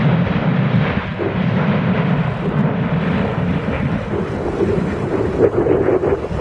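Jet noise from a B-2 Spirit bomber's turbofan engines as it flies past: a dense, continuous roar, its main rumble rising somewhat in pitch about five seconds in, with wind buffeting the microphone.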